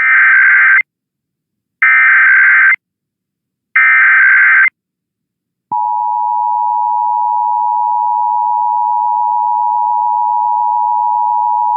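Emergency Alert System SAME header: three short buzzy data bursts, about a second each with a second's gap between them. A little under six seconds in, the EAS two-tone attention signal (853 and 960 Hz together) starts and holds steady, marking the start of an alert, here a required monthly test.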